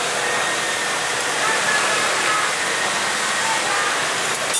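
Steady hiss of food deep-frying in a pot of hot oil over a strong gas flame.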